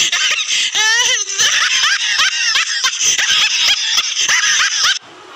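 High-pitched laughter in rapid, evenly repeated bursts, about five a second, that cuts off abruptly about five seconds in.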